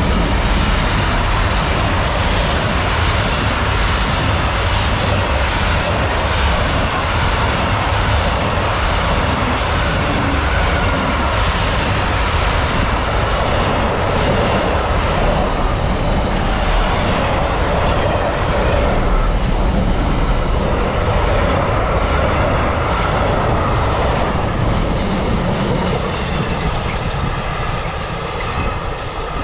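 Long freight train hauled by a Class 66 diesel locomotive passing close by: a steady rumble of wagons rolling over the rails, with a regular clatter of wheels over rail joints that is strongest in the first half and eases off near the end.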